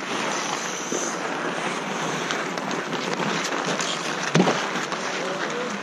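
Ice hockey play: skate blades scraping and carving on rink ice, with short stick and puck clacks, and one sharp knock a little past four seconds in.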